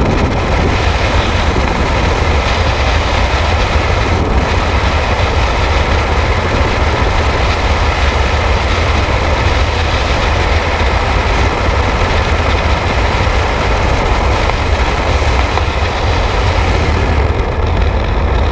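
Freefall wind rushing past a helmet-mounted camera's microphone: a loud, steady rumble and hiss of air buffeting the mic that does not let up.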